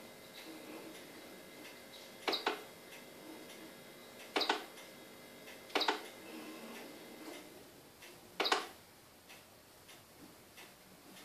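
Stylus tapping and clicking on a small pen tablet to pick characters from an on-screen menu: a handful of sharp plastic clicks at irregular intervals a second or more apart, some in quick pairs, with fainter ticks between.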